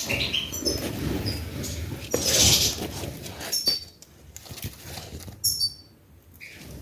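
Short, high chirps from Gouldian finches, a handful of times, over rustling and handling noise, with a few sharp knocks.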